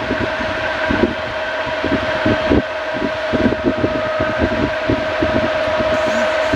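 Electric pedestal fan with a second set of blades added, running at full speed and blowing strongly: a steady motor hum with a fainter higher whine over a constant rush of air. Its airflow buffets the microphone in irregular low gusts. The motor runs a little slower under the extra blades' load.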